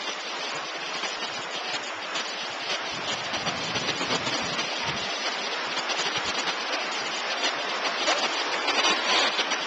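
Ocean surf washing up the shore and swirling around the legs in shallow water: a steady hiss of breaking waves.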